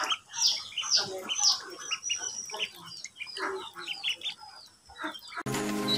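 A group of ducklings peeping: many short, high calls, each falling in pitch, several a second. Music starts abruptly near the end.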